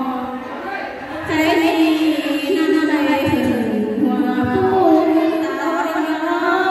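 A woman singing a Thái folk song into a microphone, with long held notes that waver in pitch; the voice eases off briefly and picks up again about a second in.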